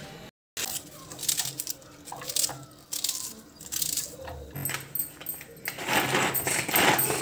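Cabbage torn and crumpled by hand, with small scattered clicks and rustles. About five and a half seconds in, a plastic hand vegetable chopper full of cabbage is worked in quick, rapid rattling strokes.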